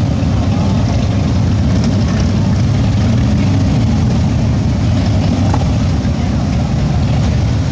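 Several cruiser and touring motorcycles, engines rumbling at low revs, pulling out one after another at walking pace.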